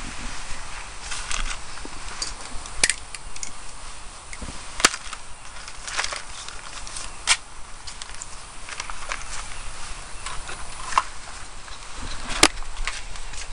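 Irregular sharp clicks and taps from handling fishing tackle and line, about a dozen, a few of them louder.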